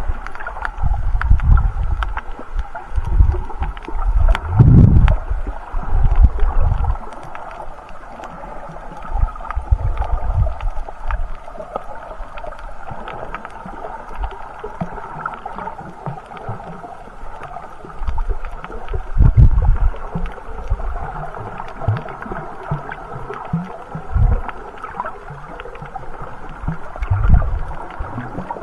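Muffled underwater sound picked up by a camera held below the surface while snorkelling: a steady dull wash of water with irregular low thumps and sloshes from the swimmer's movement. The thumps are heaviest at the start and come again a few times later on.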